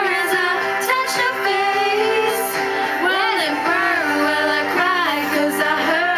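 Female voices singing a pop ballad over accompaniment, the melody gliding and breaking between sung phrases.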